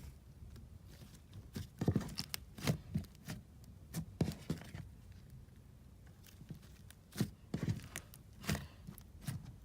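Irregular soft clicks and thumps of close-up hand handling noise, coming every half second to a second.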